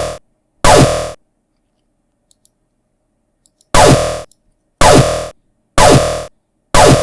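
Synthesized laser blaster shots built in Audacity from a falling sawtooth chirp with a phaser and layered low-passed noise. Each is a sharp zap about half a second long with a falling pitch and a fading tail. The tail of one shot opens, another comes just under a second in, and after a pause of about two and a half seconds four more follow at about one a second.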